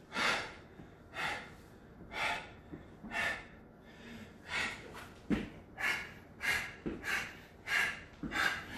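A man breathing hard from exertion: short, forceful breaths about one a second, coming faster in the second half, with a few dull thumps.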